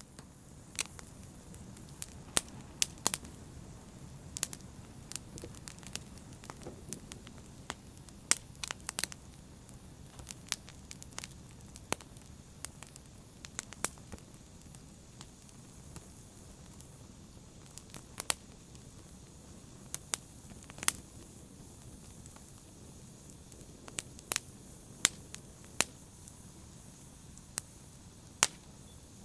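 Fire burning in a fireplace, crackling: irregular sharp pops and snaps, some much louder than others, over a soft steady rumble of the flames.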